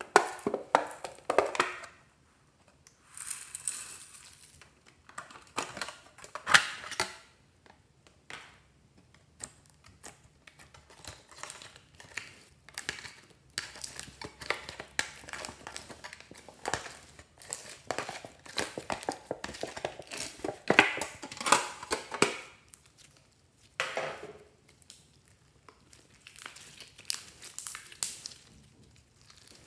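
Purple slime full of small foam beads being scraped out of a plastic pencil case and squeezed by hand: irregular crackling, popping and squelching, with a few sharp clicks of the plastic case.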